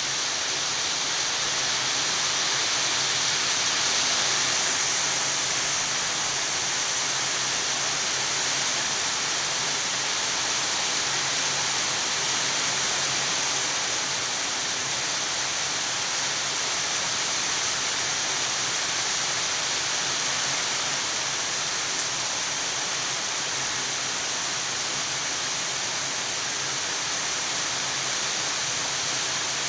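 Steady rain falling, a continuous even hiss that never lets up.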